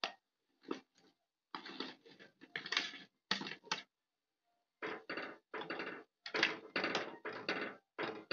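Fried elephant yam pieces being scraped off a plate into a pan of gravy, then a ladle stirring in the pan: a run of short, irregular scrapes and knocks of utensil on plate and pan.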